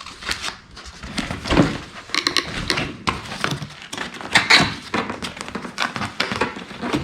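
Cardboard and plastic laptop packaging being handled and opened: irregular rustling, scraping and light knocks, with louder handling about one and a half seconds in and again near the middle.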